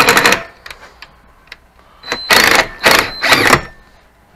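Cordless drill-driver with a socket spinning in short bursts on a bolt in the couch's base frame: one burst at the start and three more close together about two to three and a half seconds in.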